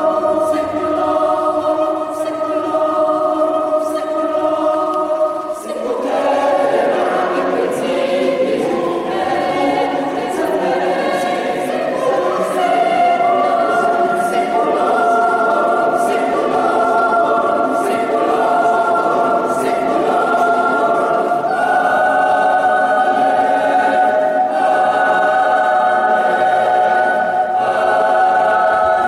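Mixed chamber choir singing a cappella: held chords at first, then about six seconds in the sound suddenly grows fuller, with more voices moving together.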